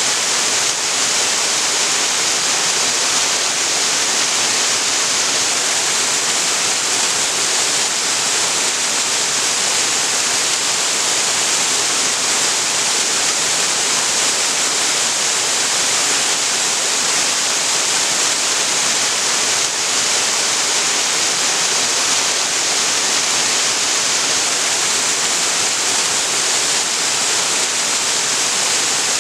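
Waterfall on a creek: water falling and splashing in a steady, even rush, strongest in the hiss of the upper range.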